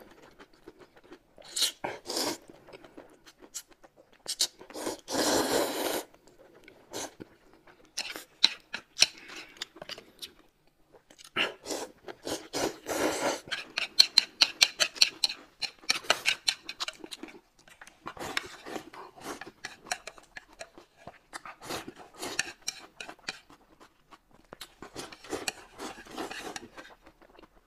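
Close-up eating sounds: noodles slurped and chewed, in irregular bursts of clicks and wet noises.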